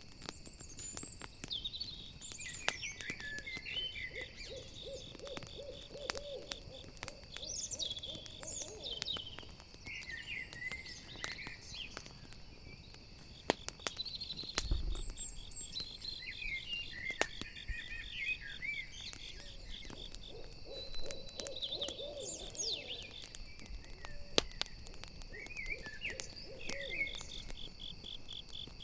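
Night forest ambience: an owl hooting in wavering low runs (a few seconds in, again around two-thirds through and near the end) over a steady trill of crickets, with a campfire crackling in sharp scattered pops. Chirping high calls come and go throughout.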